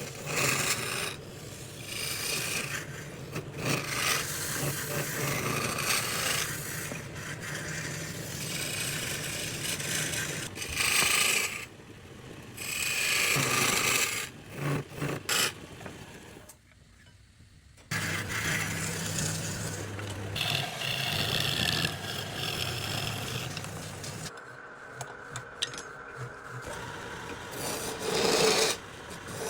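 Wood being worked with an abrasive tool: rough scraping and rubbing strokes in uneven bursts, with a brief pause a little past the middle.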